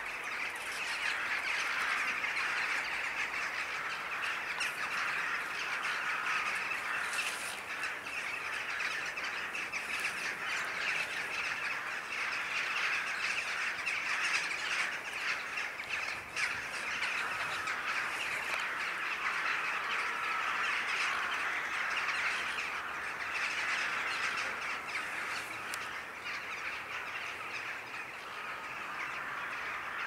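A large flock of corvids calling continuously as it flies over to roost at dusk: many caws overlapping into one dense, unbroken chorus.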